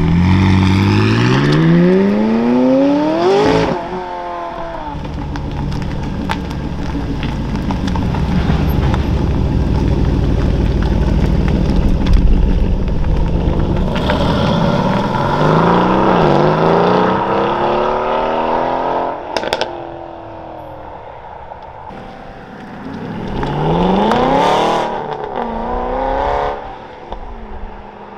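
Three supercars accelerating hard away in turn. A McLaren 675LT Spider's twin-turbo V8 revs up to a gear change about three and a half seconds in. An Aston Martin Vantage then pulls away through several rising gears, with a sharp crack near the top. A second Vantage's engine climbs in pitch near the end.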